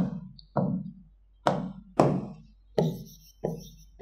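A series of sharp knocks, about eight in four seconds, each dying away quickly.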